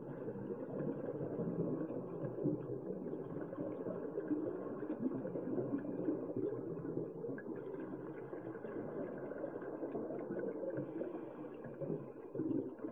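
Muffled underwater noise picked up by a waterproof camera's built-in microphone: a steady, dull rumble without any distinct events.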